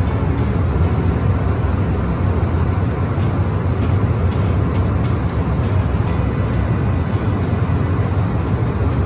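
Steady low rumble of an airliner cabin in flight: engine and airflow noise heard from inside the passenger cabin.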